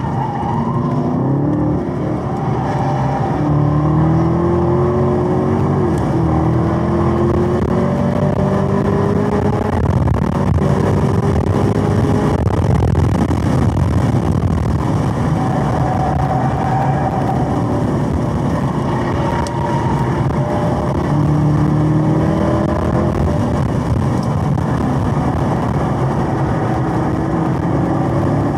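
Supercharged 6.2-litre V8 of a Chevrolet Camaro ZL1 1LE, heard from inside the cabin, running hard on a race track. It pulls up in pitch through a long acceleration over the first dozen seconds, eases off, then climbs again past the middle, over steady tyre and wind noise.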